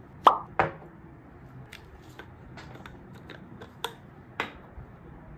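Plastic skincare bottles being handled on a desk: two sharp knocks just after the start as a bottle is set down, then scattered light clicks and taps as the toner bottle is picked up and its cap taken off.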